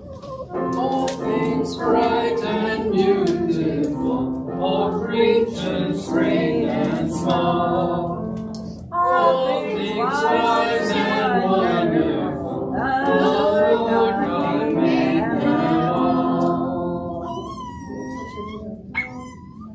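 A small congregation singing a hymn together, voices blended, fading out about seventeen seconds in. Near the end a dog whimpers with thin, high whines.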